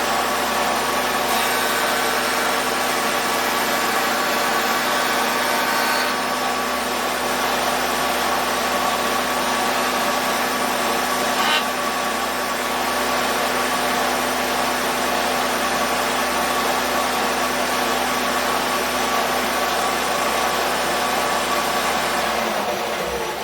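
Router spinning an ogee bit, running steadily at high speed, with a brief sharper sound about eleven and a half seconds in; near the end the motor is switched off and winds down.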